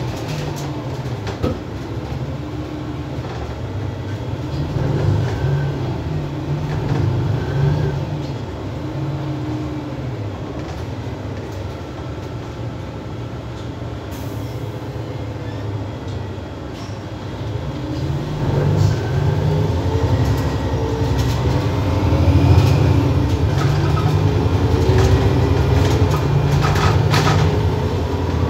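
Cabin noise of an Iveco Urbanway 12 CNG city bus under way: a steady low engine and drivetrain hum with road noise. It eases off around the middle, then grows louder from about 18 seconds in, with a whine climbing in pitch as the bus accelerates.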